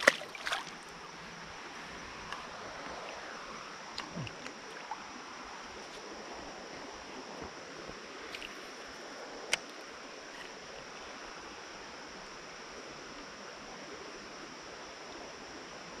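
Steady, quiet rush of a shallow creek flowing over rocks. A brief splash comes right at the start as a small fish is dropped back into the water, and a few faint ticks follow, the sharpest about halfway through.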